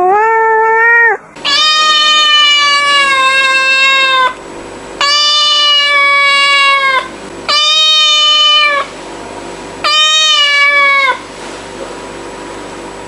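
Domestic cat meowing five times in long, drawn-out calls of nearly level pitch. The first is short and rises at its end, the second is the longest at nearly three seconds, and there are short pauses between calls.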